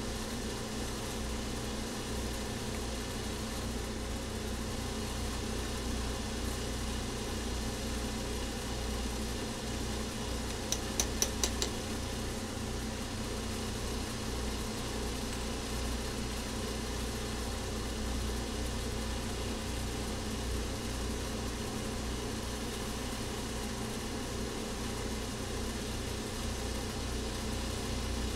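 Steady hum of a running electric motor in a shoe-repair workshop. About eleven seconds in comes a quick run of about five sharp ticks.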